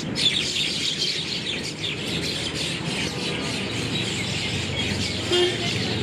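A flock of birds chirping together: many short, overlapping calls at once.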